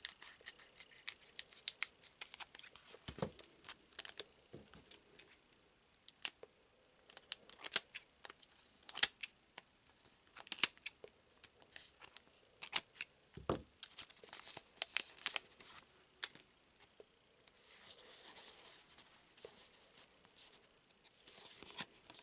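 Foil trading-card booster pack being opened and its cards handled: many small sharp clicks and crinkles, two soft thumps about three seconds in and again about thirteen seconds in, and a stretch of soft crinkling near the end.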